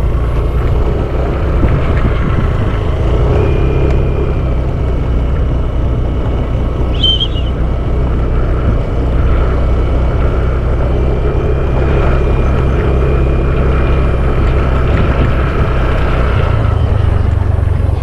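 An engine running steadily, a loud low rumble that does not change. There is a brief high chirp about seven seconds in.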